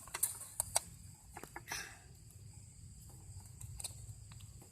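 Scattered light clicks and taps of a test light's probe being worked against wiring and connectors, most of them in the first second, over a faint steady high-pitched tone.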